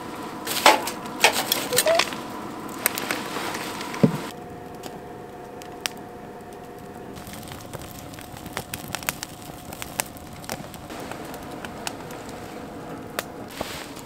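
Wood fire crackling in a small metal fire pit, with sharp pops and snaps scattered throughout. A few louder knocks and rustles come in the first four seconds.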